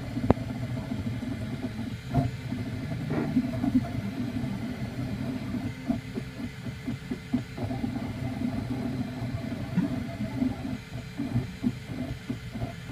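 Fused-filament 3D printer running mid-print: a steady motor and fan hum with quick, irregular stepper-motor moves of the print head as it lays down plastic. There is one sharp click a fraction of a second in.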